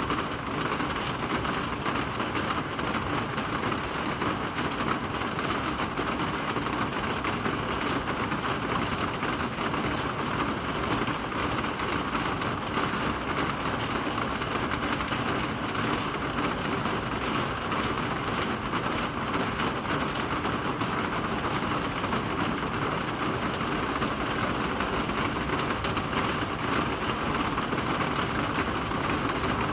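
Rain falling steadily: an even hiss of drops that holds unchanged throughout.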